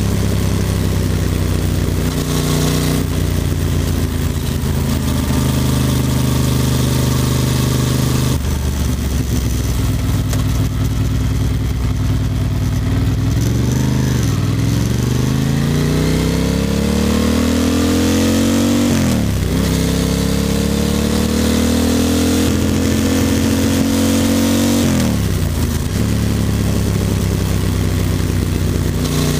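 Ducati Monster 620's air-cooled L-twin engine running at a steady cruising speed, then pulling up through the gears. From about halfway its pitch dips and climbs back three times, once with each upshift as it accelerates.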